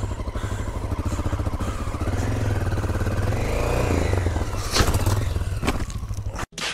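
Honda XL 600 single-cylinder four-stroke engine running at low speed on gravel, its revs rising and falling around the middle. About five seconds in come a couple of sharp knocks and scraping as the loaded bike tips over into a low-speed fall.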